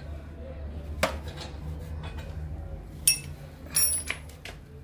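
Hand tools and metal parts clinking while work goes on at a motorcycle's side: a sharp clink about a second in and a few more with a brief ringing around three to four seconds in, over a low steady hum.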